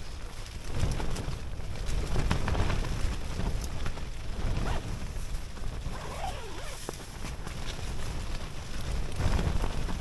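Gusting wind buffeting the microphone, rising about a second in and coming and going in strength, with a few light clicks.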